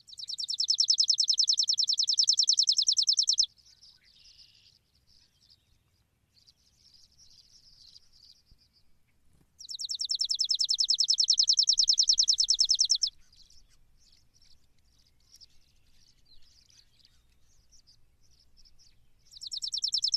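A high, rapid pulsing trill repeated in three bursts of about three and a half seconds each, roughly ten seconds apart, with fainter chirps in between.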